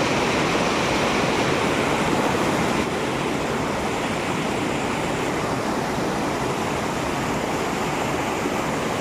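Shallow rocky river rushing over stones in a steady flow, a little softer from about three seconds in.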